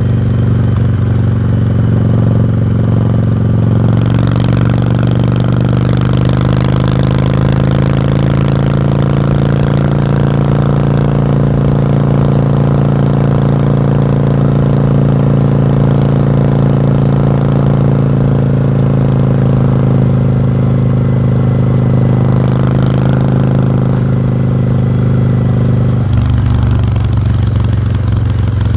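Exhaust of a 1986 Yamaha Virago's air-cooled V-twin running steadily while riding, its note holding near one pitch. A broader rush of sound joins about four seconds in, and the engine note shifts a couple of seconds before the end.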